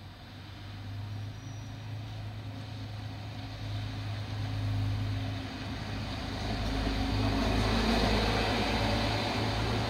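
A motor vehicle's engine hum and road noise passing close by. It grows steadily louder to a peak about eight seconds in, then begins to ease off.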